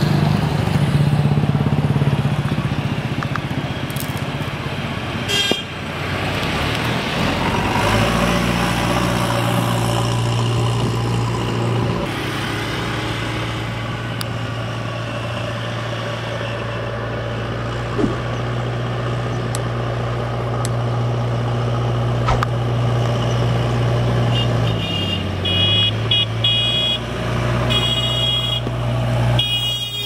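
JCB 3DX backhoe loader's diesel engine running steadily as the machine drives along the road, with passing motorcycles. A vehicle horn toots once early on and then several short times in quick succession near the end.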